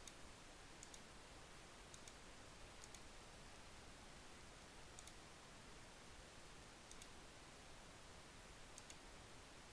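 Faint computer mouse clicks, about seven at irregular intervals, over near silence.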